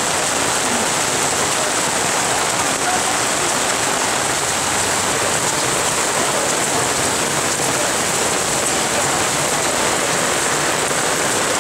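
Heavy rain falling steadily, an even hiss of rain on the wet road and on plastic rain ponchos.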